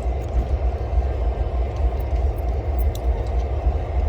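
Steady low rumble that swells and dips slightly, with a few faint clicks.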